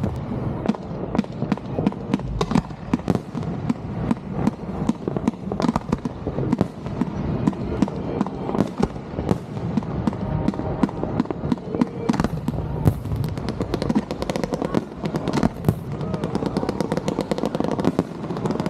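Fireworks display going off: a rapid, irregular run of bangs and crackles, several a second with no pause.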